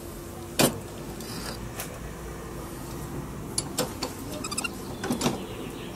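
Metal clanks and knocks from a bench vise and the steel rod clamped in it as the vise handle is worked: one loud clank about half a second in, then several lighter knocks.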